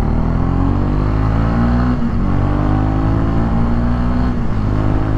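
Honda CB300R's 286cc single-cylinder four-stroke engine accelerating, its note rising in pitch, dropping about two seconds in as it shifts up a gear, rising again, and dropping once more near the end at the next upshift.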